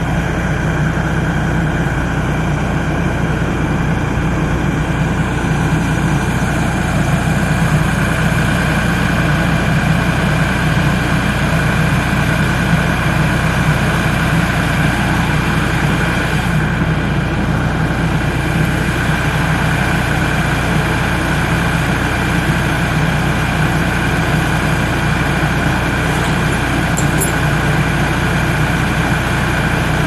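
An engine idling steadily, its pitch and loudness unchanging throughout.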